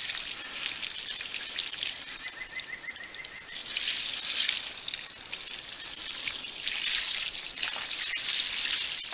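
Thick, muddy slurry of mineral attractant and water pouring from a plastic bucket onto a rotten stump, a steady splashing trickle. It grows louder about four seconds in and again in the last few seconds.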